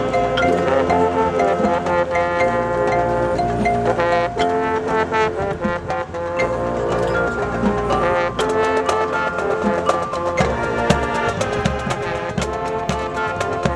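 A high school marching band playing: the brass hold sustained chords over drumline percussion, and the drum strokes grow busier about eight seconds in.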